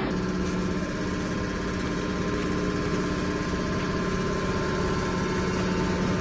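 160-ton hydraulic metal baler's motor and pump running with a steady hum, with no knocks or changes in pitch.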